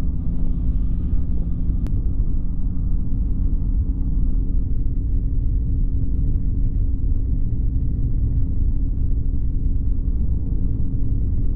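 Flexwing microlight trike's engine droning steadily in cruising flight, with heavy wind rumble from the airflow over the microphone.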